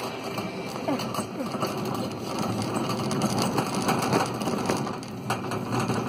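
Metal shopping cart being pushed along a hard store floor, its wire basket rattling and clattering steadily.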